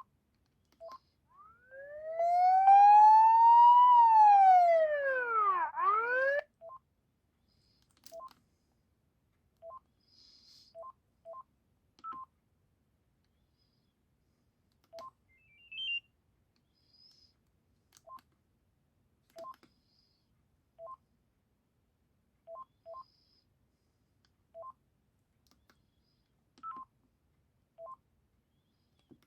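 Panasonic GD67 mobile phone playing a ringtone: a loud, buzzy electronic tone that glides up in pitch and back down over about five seconds, then cuts off suddenly. About fifteen short two-pitch keypad beeps follow at uneven intervals, one per key press, as the phone's menu is worked.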